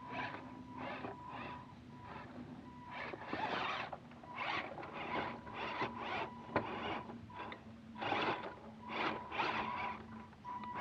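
Electric RC crawler truck driving in short bursts, its motors and gears whirring and grinding each time the throttle is applied, with a faint steady whine between.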